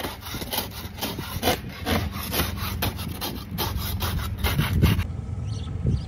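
Snow being scraped and crunched: a quick, uneven run of short rasping strokes that cuts off sharply about five seconds in.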